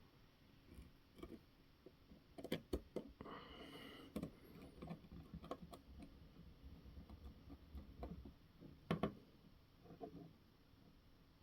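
Faint, scattered clicks and taps of small parts and hand tools being handled while fitting an RC car's rear axle and drive shaft, with a couple of sharper clicks about two and a half seconds in and again near nine seconds.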